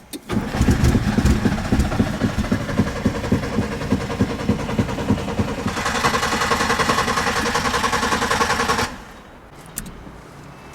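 Nissan Micra K11's engine being cranked by the starter motor, with a rhythmic chug of about four to five pulses a second, without starting. The cranking grows harsher about six seconds in, then cuts off abruptly about a second before the end.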